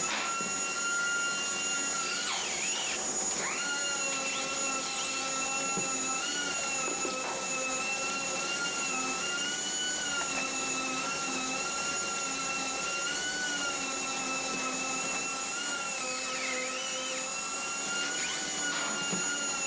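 Electric drill running steadily, its motor whine wavering slightly in pitch as the load changes, as when boring pocket holes for hidden screws with a jig.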